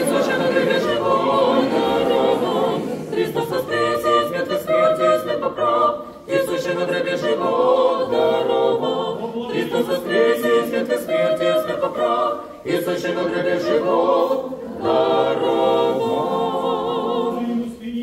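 Orthodox church choir singing memorial-service chant unaccompanied, in sustained phrases with short breaks between them.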